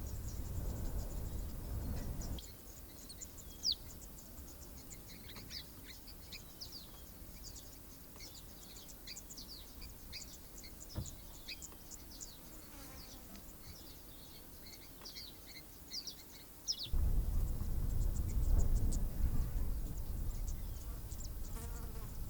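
Wild birds calling in a busy, overlapping chorus of short high chirps and whistled notes. A low rumbling noise covers the first two seconds and comes back louder about seventeen seconds in.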